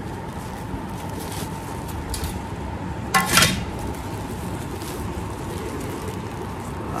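Thin plastic carry bag rustling and steel plates being handled as packed snacks are unpacked, with one brief loud crinkling burst about three seconds in.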